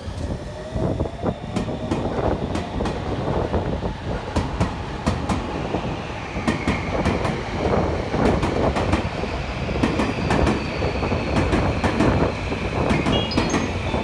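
Tobu 30000 series electric train pulling away and gathering speed. Its motors whine and the whine rises in pitch, while the wheels clack repeatedly over rail joints and points and a high steady tone comes in during the second half.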